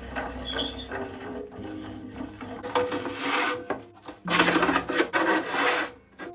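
Rasping strokes of a hand tool on wood, two long grating passes in the second half, over light background music.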